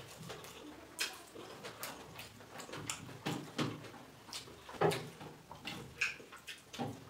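Eating by hand from a steel thali: fingers scraping and tapping the metal plate while mixing and scooping rice, with chewing and mouth sounds, as irregular short clicks and knocks.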